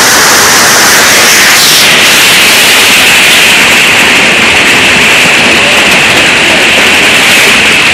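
Marble-sized hail pounding a bare tin roof with its insulation stripped out: a very loud, dense, even wash of hits that drops in pitch about two seconds in.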